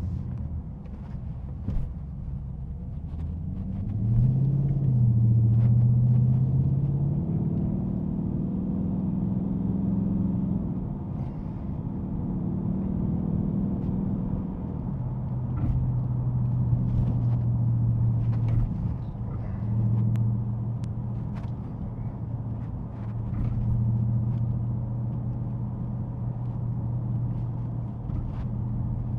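Dodge Scat Pack's 6.4-litre HEMI V8 running as the car is driven. The engine note rises and gets louder about four seconds in, then settles into a steady drone.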